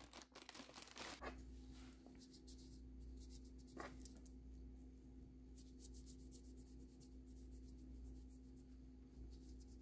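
Faint rustling and rubbing: a baby wipe being pulled from its packet in the first second or so, then a wet wipe rubbed over a small bisque doll's head in soft, irregular strokes.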